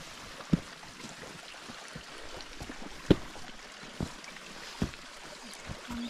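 Waterfall running: a steady rush of falling water, broken by four irregular sharp knocks, the loudest about three seconds in.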